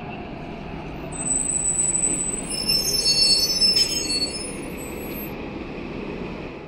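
Articulated city bus passing close by, its engine running under a steady rumble. Its brakes squeal in several high, steady tones from about a second in until past the middle, with a brief click partway through.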